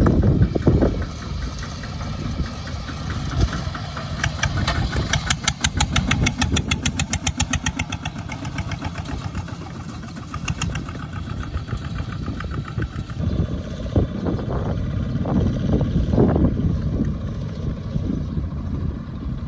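Two-wheel walking tractors' single-cylinder diesel engines (Kubota ZT140 type) chugging as they pull loaded rice trailers over rough ground. Between about four and eleven seconds in, a rapid, even run of firing pulses stands out.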